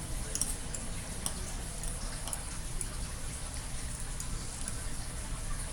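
Faint scattered clicks and ticks of eating at the table, mouth sounds and cutlery, over a steady low rumble.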